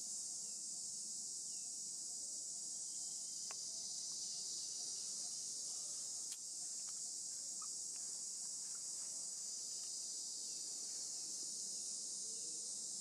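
Steady, high-pitched drone of an insect chorus, unbroken throughout, with a few faint ticks.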